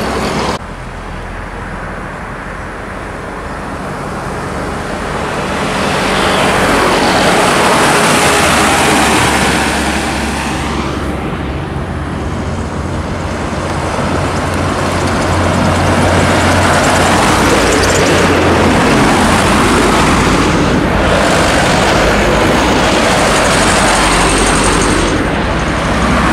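Trucks passing close by on a highway, their engines humming under tyre and road noise. The sound swells and fades as each vehicle goes past.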